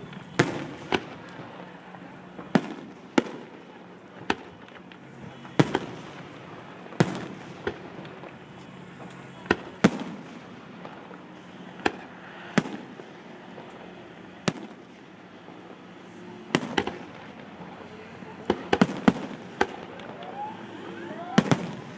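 Aerial fireworks bursting, sharp bangs every second or two with a short rumble after the bigger ones, and a quick cluster of several bangs near the end.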